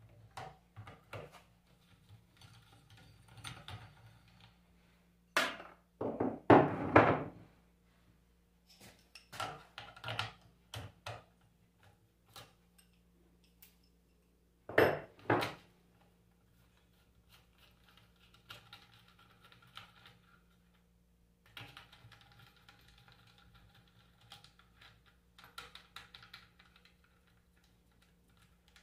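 Metal parts and hand tools clinking and knocking while a Bosch alternator is taken apart: scattered clicks, loud clunks around six and fifteen seconds in, and a few short stretches of scraping.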